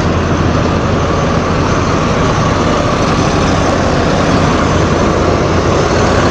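Large diesel tour bus engine idling close by: a loud, steady low rumble with even noise over it.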